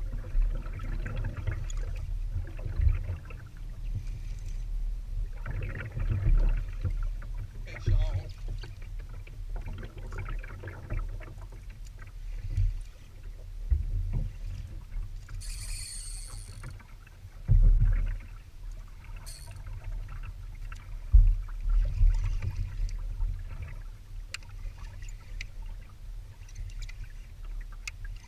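Low wind and water rumble and knocks on a camera mounted on a plastic sit-on-top kayak, with water lapping at the hull. Irregular bursts of handling noise come every second or two while a spinning reel is worked.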